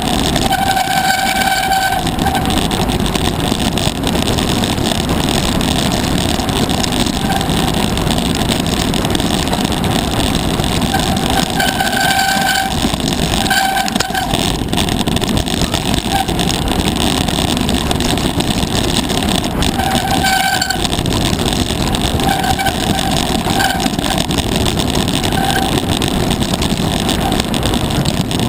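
Mountain bike riding fast down a rocky singletrack: steady wind rush over the camera microphone, with tyres and bike rattling over loose stones. There are several short, high brake squeals, the first about a second in and more about halfway and near the end.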